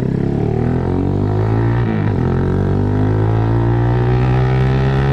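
Motorcycle engine droning through a short Austin Racing GP1R slip-on muffler while riding at low speed. The engine speed dips and picks back up about two seconds in, as when the throttle is rolled off and back on.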